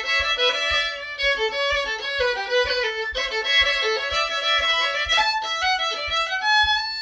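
Solo fiddle playing a Scottish jig, a quick run of bowed notes with soft low thuds on each beat; near the end it settles onto one long held final note.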